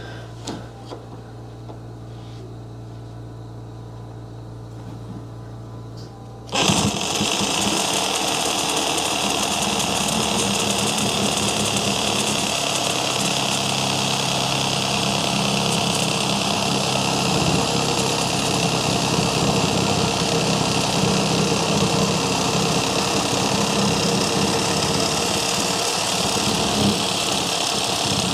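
A low steady hum, then a power saw starts abruptly about six and a half seconds in and runs steadily, cutting a short length off ABS plastic drain pipe.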